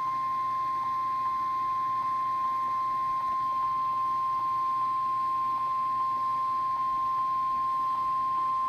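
NOAA Weather Radio 1050 Hz warning alarm tone: a single steady high beep held for about nine seconds, then cutting off. It is the signal that switches weather radio receivers on for an emergency warning.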